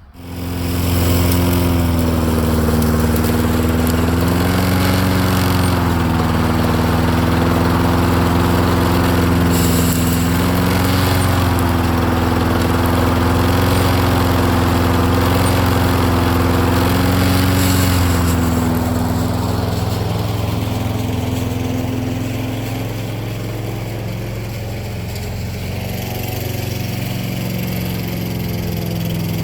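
Lawn Boy Silver Series mower's 6.5 horsepower Tecumseh engine running. It comes in suddenly at the start, and its pitch wavers up and down. About two-thirds of the way through it grows quieter and duller.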